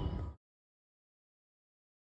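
Outdoor wind rumble on the microphone that cuts off abruptly about a third of a second in, followed by dead silence for the rest.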